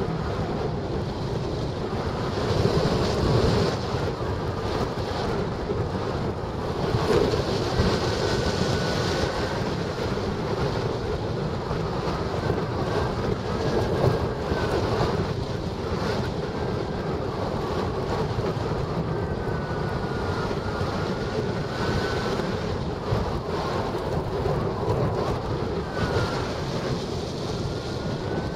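Steady rush of airflow buffeting a camera microphone mounted on a hang glider in flight, with faint short whistling tones that come and go.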